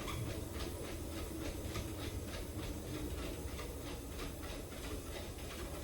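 Motorized treadmill running with a steady low hum, with a dog's paws landing on the moving belt in an even rhythm of about three to four steps a second.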